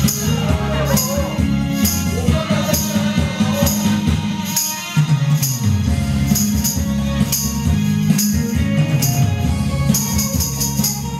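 Loud karaoke music with a steady, thumping beat and a voice singing the melody, with a tambourine shaken in time. The bass drops out briefly near the middle.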